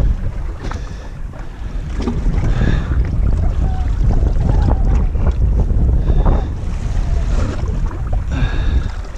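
Wind buffeting the microphone over water slapping a drifting boat, with the outboard motor off and tilted up. Scattered light knocks and rustles of hands handling the outboard's propeller and fishing line.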